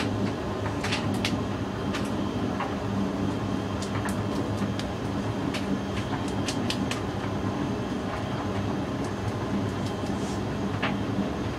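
Hoover DYN9144D3X front-loading washing machine running a wash: a steady motor hum with scattered light clicks and knocks.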